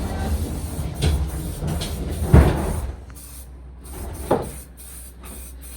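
A few knocks and thumps, the loudest a little over two seconds in, over a low steady motor hum that stops about three seconds in.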